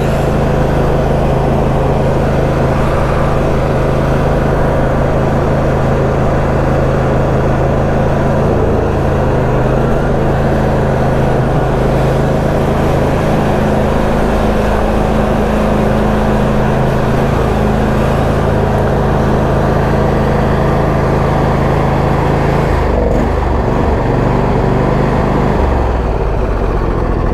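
Husqvarna YTA22V46 lawn tractor's 22-horsepower V-twin engine running steadily at full throttle as the tractor drives along. About 23 s in, its note shifts and becomes unsteady as the tractor slows.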